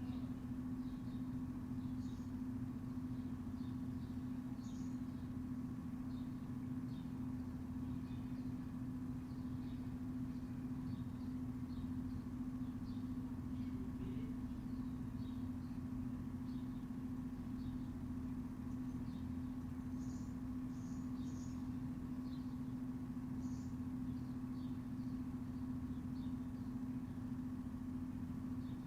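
Steady mechanical hum holding one constant low pitch over a low rumble, with scattered short, high bird chirps above it.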